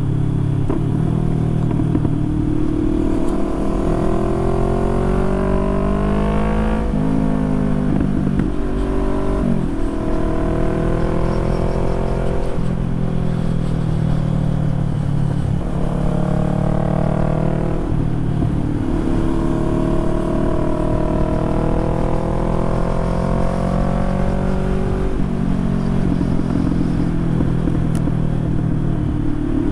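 Harley-Davidson V-twin motorcycle engine riding under way. Its pitch climbs as it accelerates, then drops sharply at each gear change or throttle roll-off, about six times.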